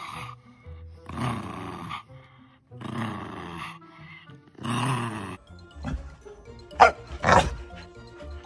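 A dog vocalizing: three calls, each just under a second and evenly spaced, then several short, sharper, louder sounds near the end. Background music plays throughout.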